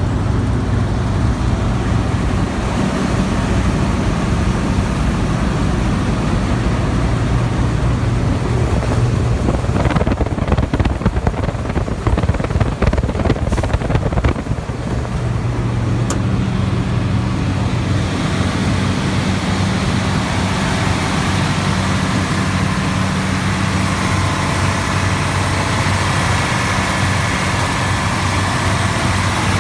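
New Holland TX 68 combine harvester's six-cylinder diesel engine running steadily. A rougher, louder stretch of irregular clattering noise comes about a third of the way through, then the steady running resumes.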